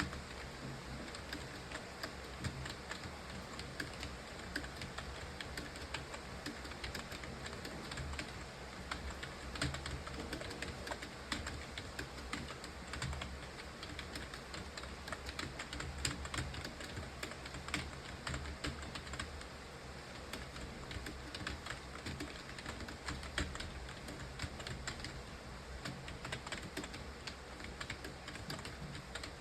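Computer keyboard being typed on continuously: a fast, unbroken stream of key clicks over a low steady hum.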